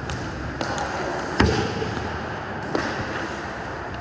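Ice hockey play: a sharp crack of stick and puck about a second and a half in, the loudest sound, and a smaller knock near three seconds, over steady rink noise with skate scrapes.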